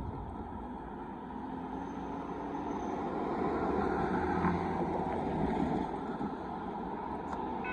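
Vehicle noise: a steady rumble that swells over the first few seconds, then holds.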